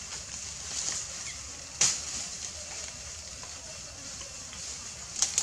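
Outdoor ambience: a steady high hiss, with a sharp click about two seconds in and another near the end.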